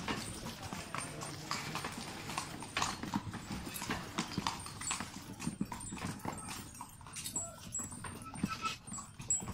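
Carriage horse's hooves clip-clopping on the street as it pulls the carriage, about two to three knocks a second.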